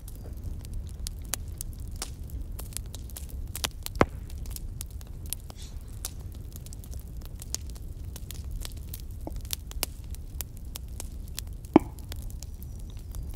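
Campfire crackling: irregular small pops and snaps over a low steady rumble, with two louder pops, one about four seconds in and one near the end.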